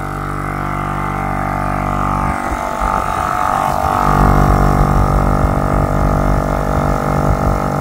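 Vevor 12V dual-piston onboard air compressor running under load while it inflates a tire: a steady, loud droning hum with many overtones. The hum gets a little louder about four seconds in.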